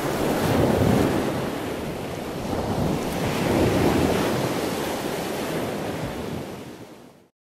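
Intro sound effect: a rushing noise like surf or wind, swelling twice and fading out near the end.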